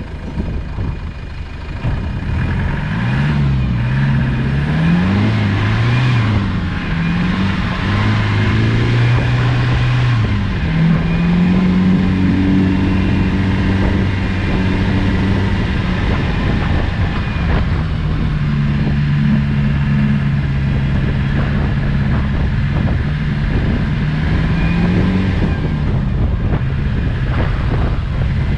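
Land Rover Discovery's 200Tdi 2.5-litre four-cylinder turbodiesel engine pulling under load off-road, its pitch rising and falling several times in the first few seconds, then running steadier, then climbing slowly before dropping again near the end.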